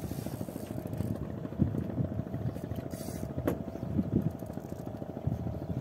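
A boat's engine running steadily at idle, a fast low throb with a steady hum. There is a sharp click about three and a half seconds in.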